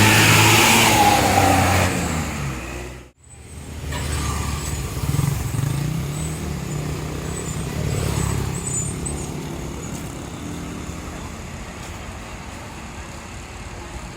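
Large tour bus diesel engine running loud as it moves off. After a sudden break about three seconds in, another bus engine pulls away, rising in pitch, then settles and slowly fades.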